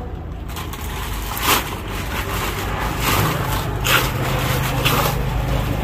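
Plastic sheeting rustling and crinkling in three short bursts as it is pulled off a wrapped tree root ball, over a steady low hum.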